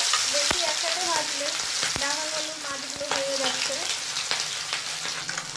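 Hilsa fish steaks sizzling as they shallow-fry in hot mustard oil in a kadai, a steady hiss with sharp crackles every second or so.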